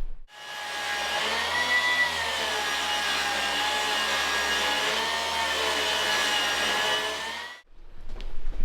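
Electric motor running steadily with a whine whose pitch wavers slightly, starting and cutting off abruptly.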